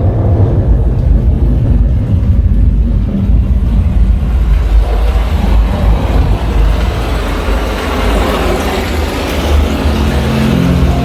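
Bass-heavy Dolby Atmos demo soundtrack played loud through a Klipsch home theater speaker system: a deep, vehicle-like rumble and whoosh. Steady musical tones come in near the end.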